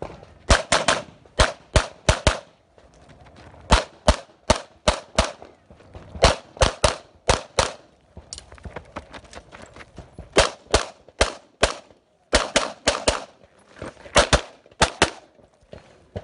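Walther PPQ Q5 Match SF 9mm pistol fired rapidly in quick pairs about a third of a second apart, in strings of shots broken by short pauses while the shooter moves between positions.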